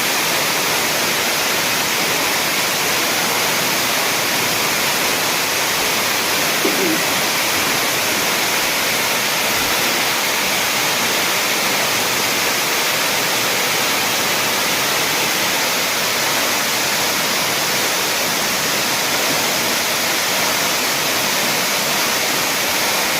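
Waterfall: water falling and crashing in a steady, unbroken rush.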